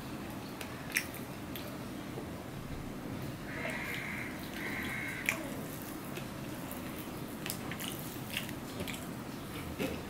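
Fingers mixing cooked rice and fish on a steel plate: soft squishing with scattered sharp clicks of fingers against the metal. Two short calls sound about four seconds in.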